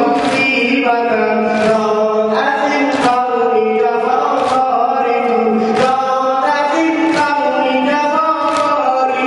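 A male reciter chanting a Shia mourning lament (noha) through a microphone and loudspeaker, holding a long, slowly moving melodic line. A crowd beats its chests in unison (sineh zani) about once every second and a half, each beat a sharp slap.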